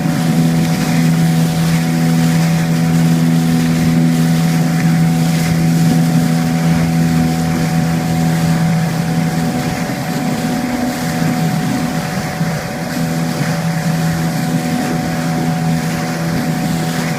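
Motorboat engine running at a steady drone, wavering briefly about halfway through, with wind and water rush.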